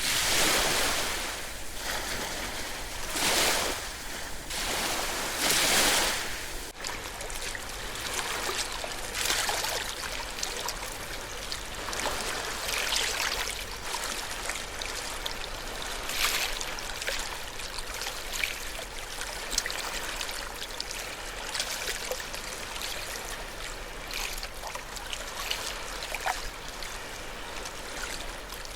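Ocean waves washing in, three loud surges in the first seven seconds, then an abrupt change to a quieter, steady wash of water with many small splashes and trickles.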